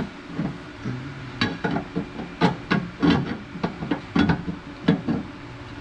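A dozen or so irregular knocks and clicks from hands working on metal fittings, hoses and hardware in a car.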